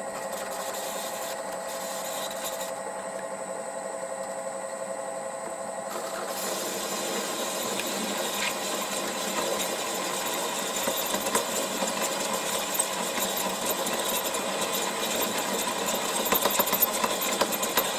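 MN-80 benchtop lathe running with a steady gear whine while boring a taper in a stainless steel tube held in a steady rest. About six seconds in, a rushing cutting noise joins the whine and grows louder, with scattered sharp ticks near the end.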